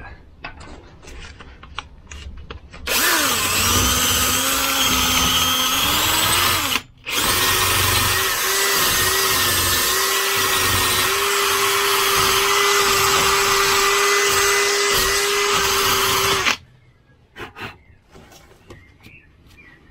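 Bosch cordless drill spinning a wire brush against a Volvo 940's rear wheel hub face, scrubbing off rust to leave a smooth surface for the brake disc. It starts about three seconds in with a rising whine, pauses briefly around seven seconds, then runs on steadily until stopping about sixteen seconds in.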